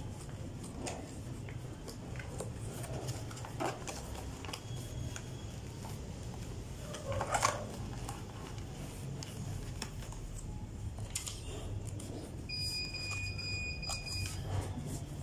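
Hands rummaging in a cardboard box and its packing, with scattered rustles and knocks, the loudest about halfway through, over a low steady hum. Near the end a steady high-pitched beep sounds for about two seconds.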